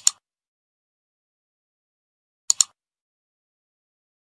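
Mouse-click sound effect, two double clicks about two and a half seconds apart, matching a cursor clicking on-screen buttons.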